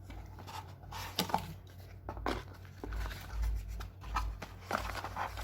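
Paper instruction booklets and box packaging being handled: irregular rustling and light knocks and clicks, over a steady low hum.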